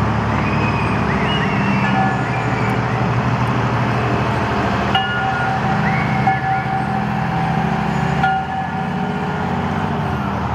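Fire engines driving slowly past, their engines running with a steady low hum.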